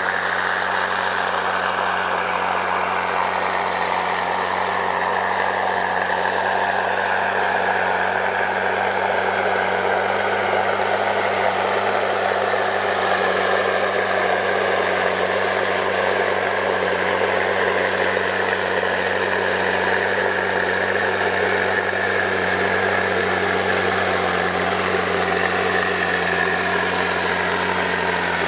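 Heavy diesel engines of a tow tractor and the loaded semi truck it is pulling, working steadily while climbing a steep hill. A higher whine slowly falls in pitch over the engine drone.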